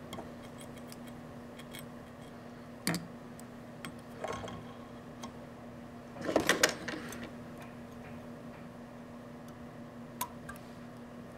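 Small clicks and ticks of fly-tying tools handled at the vise, a whip finisher and scissors, as the thread is finished off. A quick cluster of sharper clicks comes a little past halfway, the loudest moment, with single clicks about three seconds in and near the end, over a steady low hum.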